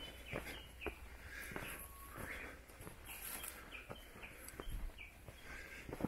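Footsteps on a dirt forest trail scattered with leaf litter, irregular crunches and clicks, with birds chirping in short calls.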